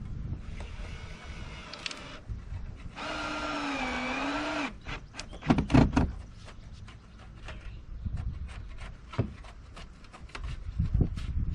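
Power drill motor running in two short bursts, the second, about a second and a half long, dipping in pitch and recovering as it takes load; then a string of sharp knocks and clatter, loudest about six seconds in.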